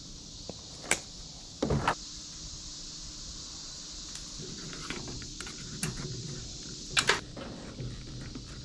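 Handling noises from wiring work on a pickup truck's tail light: a few sharp clicks and a louder dull thump with clatter near the start, then softer rustling and clicks of wires, connectors and the plastic tail-light housing, over a steady hiss.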